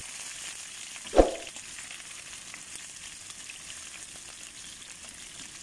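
Fish fillets and ginger slices frying in oil in a pan, with a steady sizzle and one knock about a second in.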